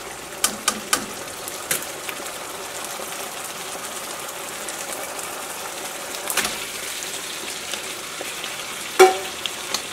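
Chilli-soy sauce boiling in a black wok, a steady bubbling hiss, with a few light ladle clinks in the first two seconds. Near the end, fried chicken pieces go in from a plate with one loud knock.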